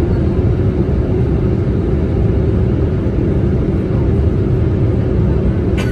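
Steady jet-engine and airflow rumble heard inside the cabin of a Boeing 787-8 climbing out after takeoff, with a brief click near the end.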